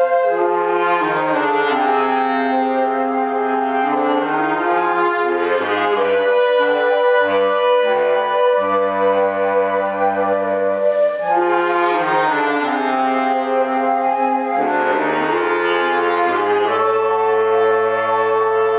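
Woodwind ensemble of flutes and clarinets, with a bass clarinet on the low line, playing sustained chords under a conductor. The held chords shift every second or two over a moving bass line, at an even loudness.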